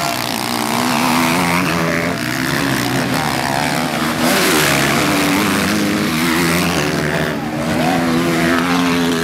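Motocross bikes revving hard through a rutted dirt corner, engine pitches rising and falling as they accelerate out of the turn. About four seconds in one passes close with a louder rush.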